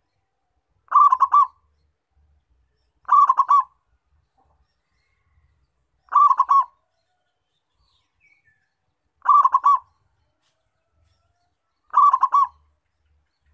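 Zebra dove (perkutut) cooing: five short calls, each a quick run of several staccato notes, repeated about every three seconds.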